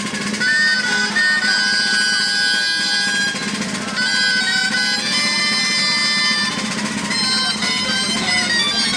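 Folk tune played on shrill reed pipes: a melody moving between held notes over a steady low drone.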